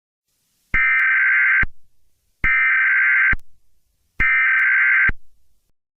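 Emergency Alert System SAME header tones: three harsh, buzzing digital data bursts, each just under a second long with a short pause between them.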